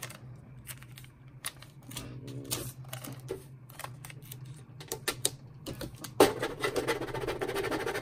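Clear vinyl transfer tape being handled and pressed onto vinyl decals, with scattered crackly clicks. About six seconds in, a plastic scraper starts rubbing the tape down in a steady scratchy rasp.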